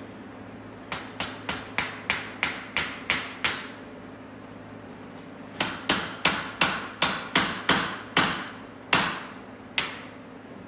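Hammer blows knocking a bent part back into place. There are two runs of about nine quick strikes each, about three a second, with a pause of about two seconds between them, then two last single blows.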